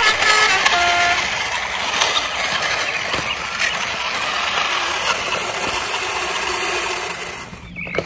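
A few short beeps at different pitches, then a steady, noisy truck-engine sound that fades out near the end.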